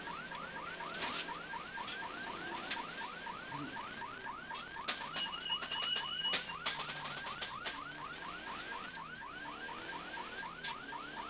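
Electronic siren on a rally car sounding a fast yelp, a rising sweep repeated about four times a second without a break, over the faint hum of the car's engine. A brief steady high tone joins it about five seconds in.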